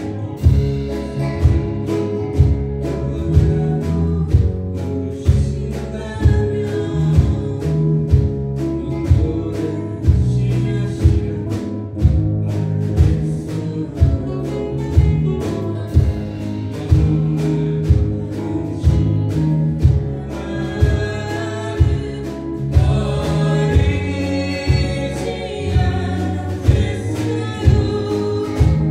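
Small live band playing a Korean pop song, with acoustic guitars and a drum kit keeping a steady beat, and a woman singing the melody into a microphone.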